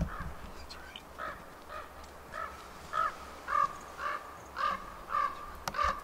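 A crow-like bird calling: a run of short calls about two a second, louder in the second half, with a single low thump at the very start.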